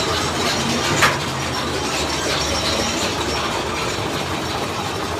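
Big Thunder Mountain Railroad mine-train roller coaster running on its track: a steady rattling rumble, with one sharp knock about a second in.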